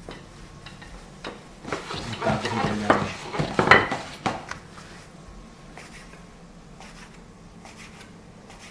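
Wooden rolling pin rolling over pasta dough on a wooden pastry board, with rubbing and sharp wood-on-wood knocks for a few seconds. Then a few faint taps as a knife cuts the dough on the board.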